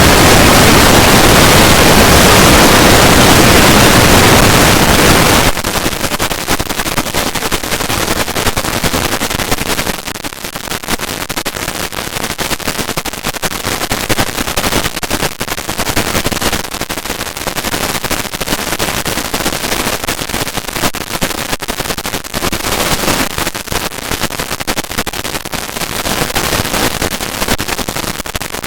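Harsh, heavily distorted noise, very loud for about the first five seconds, then dropping into a dense, rapid crackle that runs on.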